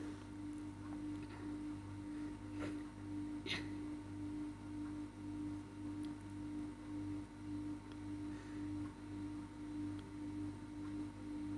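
Quiet, steady background hum that swells and fades in a slow, even rhythm, with two soft clicks about three seconds in.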